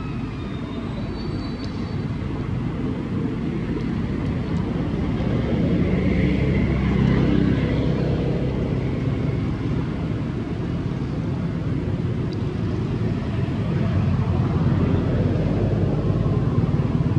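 Low, steady rumble of a distant motor vehicle engine, swelling around the middle and again near the end.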